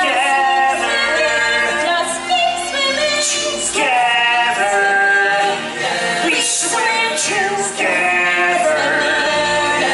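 Stage-musical number: female and male voices of the cast singing together over recorded music, with long held notes.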